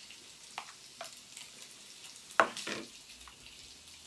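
Crumbled spicy Italian sausage sizzling steadily in a frying pan of sesame seed sauce. A few light clicks break in, then one sharp knock about two and a half seconds in.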